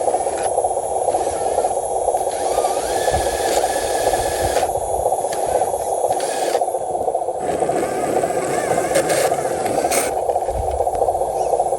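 Small electric motor and gearbox of a radio-controlled truck running steadily, at an even level.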